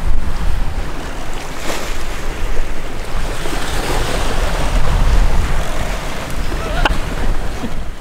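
Wind buffeting the microphone over the rush of open-ocean waves around a sailboat, swelling a little louder around the middle.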